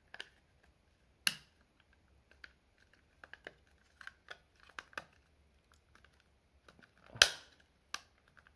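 Small plastic clicks and handling taps from the white lid of a Raspberry Pi 5 plastic case being pressed onto its red base, with two louder clicks, one about a second in and one near the end.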